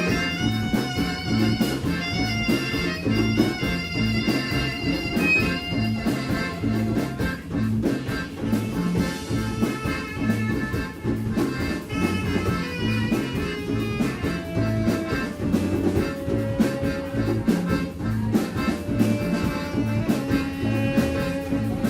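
Live band playing an instrumental passage: a melody of held notes over a steady, repeating bass and drum groove.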